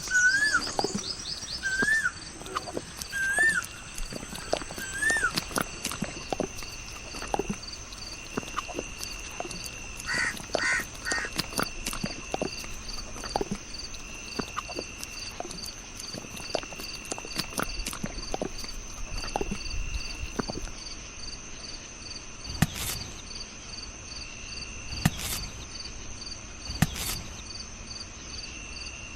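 Outdoor ambience: a bird chirps repeatedly for the first several seconds over a steady high trilling of insects, with scattered light taps and clicks throughout.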